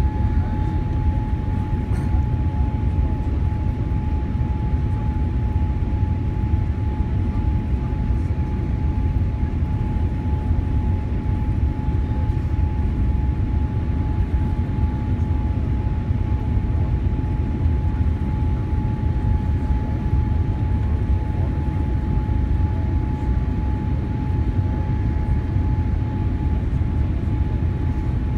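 Steady cabin noise of a Boeing 787-8 on final approach with its flaps extended: a low, even rumble of airflow and engines, with one steady high tone running through it.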